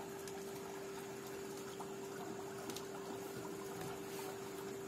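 Steady, fairly quiet hum with a hiss behind it and a few faint clicks.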